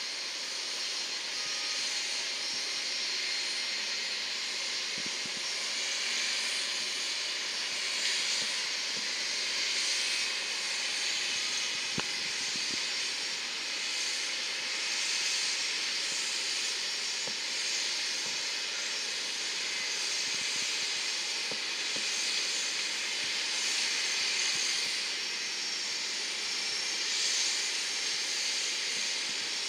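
Rolls-Royce AE 3007 turbofans of an Embraer regional jet running at idle: a steady high whine and hiss.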